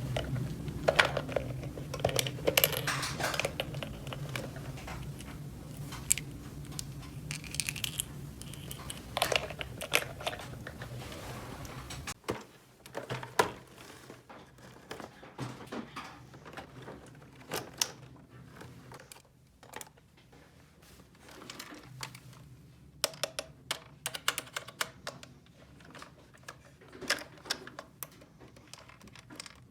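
Small plastic toy pieces being handled, with irregular clicks and taps and some crinkling of packaging. A low steady hum under the first part stops abruptly about twelve seconds in.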